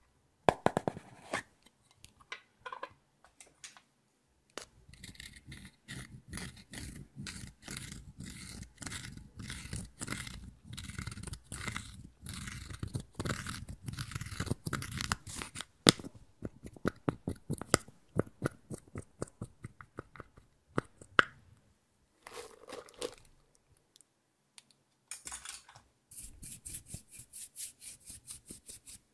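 Pressed face powder in its compact being crushed and broken up with a small plastic tool: a dense run of dry crunching and scraping strokes, then sparser sharp clicks and crunches. Near the end comes a quick series of light strokes as a makeup brush works the crumbled powder.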